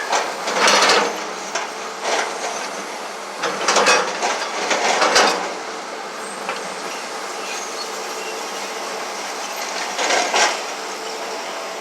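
Crawler bulldozer's steel tracks clanking and rattling over a steady machine drone, with loud bursts of metal clatter about half a second in, around two seconds, between three and a half and five seconds, and again near ten seconds.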